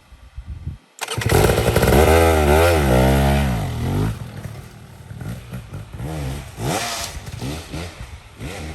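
Dirt bike engine coming in loud and sudden about a second in, revving up and down with the throttle for a few seconds, then quieter, with its revs still rising and falling.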